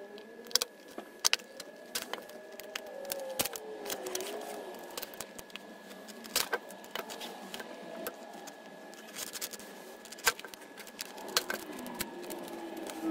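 Clear plastic blister packaging being cut and pried open with a knife: irregular sharp clicks and crinkles, with wavering squeaks of plastic in the first few seconds and again near the end.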